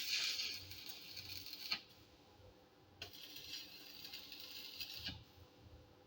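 Electric arc welding crackle in two short welds, each about two seconds, with a pause between: tack-welding steel strip-plate fins onto a hollow-section iron roller.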